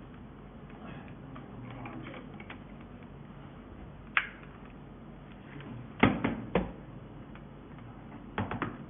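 Vacuum cleaner parts being handled and fitted together: a click about four seconds in, three loud knocks around six seconds, and a quick run of clicks near the end.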